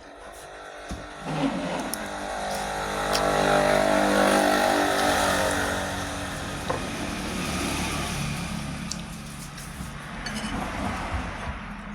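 A motor vehicle's engine passing by, growing louder over about four seconds and then fading away.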